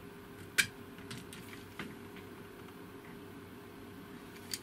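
A few sharp clicks and small scrapes of a screwdriver tip poking at a lump of solder on a kettle's circuit board, trying to knock it loose. The loudest click comes about half a second in and another just before the end, over a faint steady hum.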